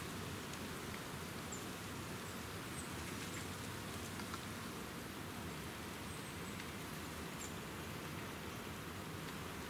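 Steady, even hiss of outdoor background noise, like light rain or wind in the woods, with a few faint, brief high-pitched chirps scattered through it.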